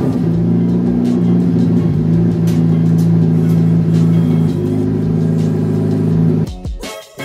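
A Saturn S-series sedan's four-cylinder engine, freshly cold-started, idles loudly and steadily through an open header, with no exhaust piping after the header. The sound stops about six and a half seconds in.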